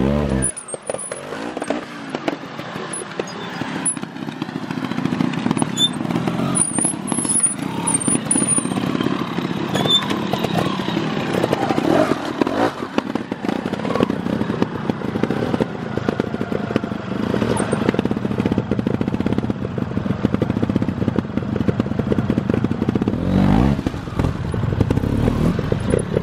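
Trials motorcycle engines running and blipped on the throttle as the bikes are ridden up stone steps, with one rev rising near the end.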